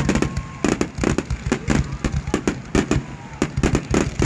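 Fireworks going off in a rapid, irregular crackle of sharp bangs, several a second.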